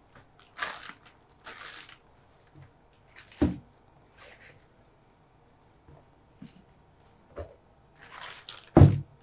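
Plastic wrapping crinkling and a fabric carry bag rustling as a wrapped tripod is handled, in short scattered bursts. Two dull thumps stand out, one about a third of the way in and a louder one near the end.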